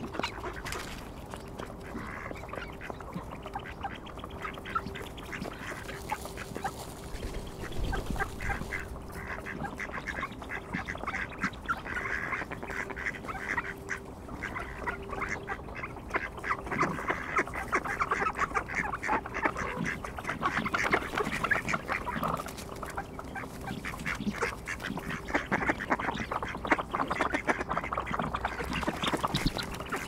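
Mallard ducks quacking, a dense run of short calls in quick succession that grows busier and louder in the second half.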